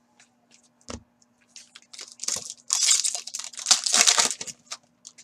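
A foil trading-card pack (Upper Deck Full Force hockey) being torn open, its wrapper crinkling and crackling for about three seconds, loudest near the end, after a single light knock about a second in.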